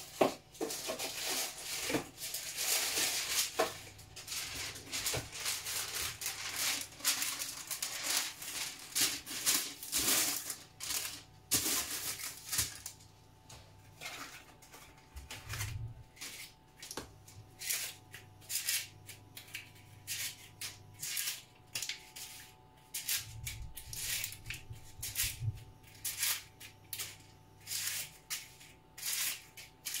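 Bain-marie heating on the hob: the water in the pot under a glass bowl of chocolate gives off irregular crackling and ticking. It is dense, with a hiss, for the first dozen seconds, then thins to scattered clicks.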